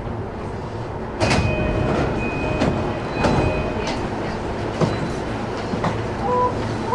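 Inside an E233-5000 series commuter train stopped at a station, the doors open with a sudden burst of noise about a second in. A short chime then repeats three times over the train's steady cabin noise, with a few clicks.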